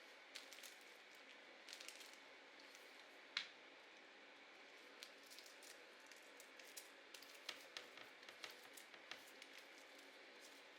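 Quiet handling of paper and craft supplies for a junk journal: scattered light taps, clicks and paper rustles. There is one sharper tap about a third of the way in and a denser run of small clicks near the end.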